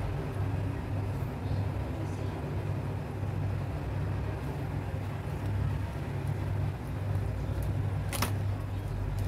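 Tap water running steadily into an animal lung through its windpipe in a stainless steel sink, a continuous low rushing hum. A short sharp click or squelch about eight seconds in as a gloved hand handles the lung.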